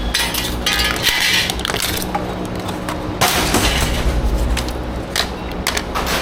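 Clicks, knocks and scraping clatter of plastic and metal parts as LCD computer monitors are unscrewed and pried apart, over a steady low hum.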